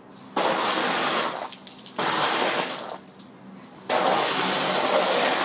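Water spraying from a multi-pattern garden hose nozzle set to its rinse pattern, a hiss that comes in three bursts of about a second each as the nozzle is squeezed and let go.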